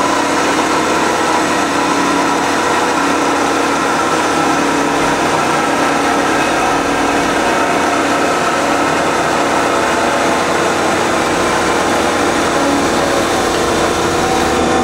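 Marvel 15A/S automatic horizontal band saw cutting through a tube, its blade sawing under hydraulic feed. A steady, even machine whine with several held tones.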